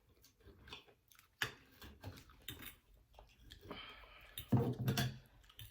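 Close-miked chewing and eating sounds, with scattered light clicks of cutlery on a plate, and a louder muffled mouth sound about four and a half seconds in.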